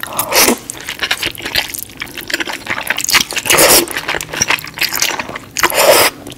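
Ramen noodles slurped up from chopsticks, close-miked: three loud slurps, at the start, around the middle and near the end, with small wet mouth sounds in between.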